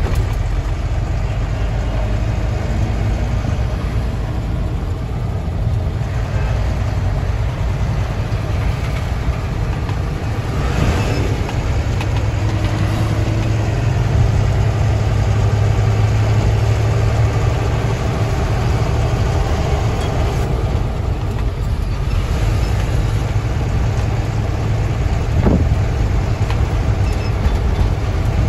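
Truck engine and road noise heard inside the cab while driving, a steady low drone, with two brief knocks about a third of the way in and near the end.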